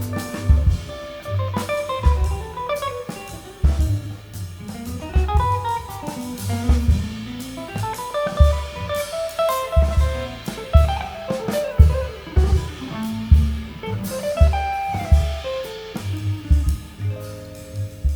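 A jazz band playing an instrumental break: a melodic solo line moving over bass and drum kit.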